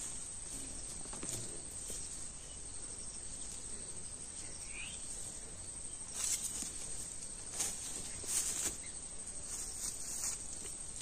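Steady high-pitched insect chorus, with a few brief rustles and scrapes of someone pulling cassava roots from the soil in the second half.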